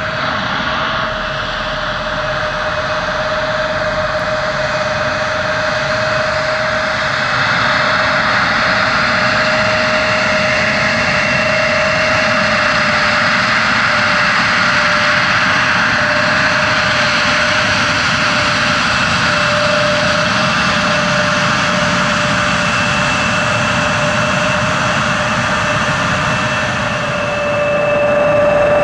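The GE CF34 turbofan engines of an Embraer 170 airliner running: a broad jet rush with a steady whine, growing slowly louder and rising again near the end.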